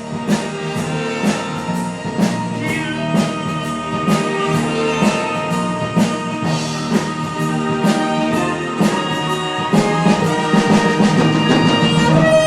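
Live band playing the instrumental close of a show tune: brass and other instruments holding chords over a steady drum beat.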